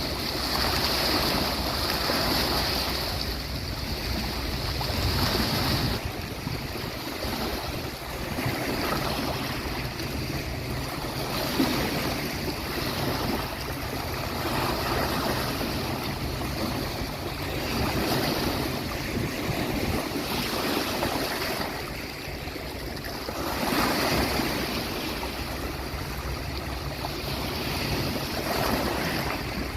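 Sea waves breaking and washing on a beach: a continuous rush of surf that swells and eases every five or six seconds.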